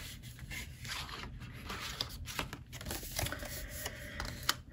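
Paper and card rustling and scraping in irregular short strokes as album inserts are handled.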